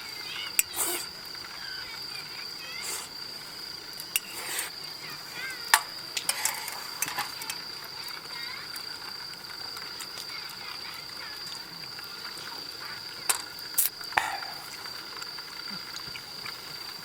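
Crickets trilling steadily in a high, unbroken tone, with a few sharp clicks and clinks scattered through it.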